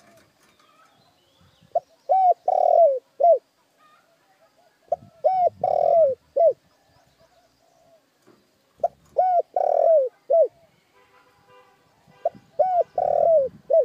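Spotted dove cooing, a decoy bird's call: four phrases, one every three and a half to four seconds, each a short note, a pair of notes, a longer drawn note that falls at its end, and a short closing note. Faint chirps of other small birds lie between the phrases.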